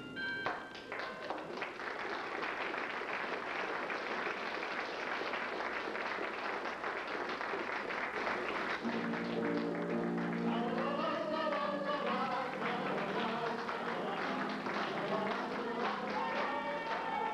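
Audience applauding. About nine seconds in, piano and keyboard music starts up for the curtain call, and the clapping carries on over it.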